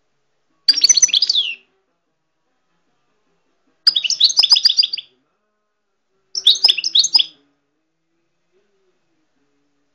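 Small caged songbird singing in short phrases of fast, high twittering notes. Three phrases of about a second each come a few seconds apart, and a fourth starts at the very end.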